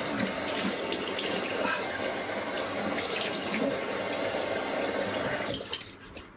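Water running steadily from a tap into a sink, shut off about five and a half seconds in.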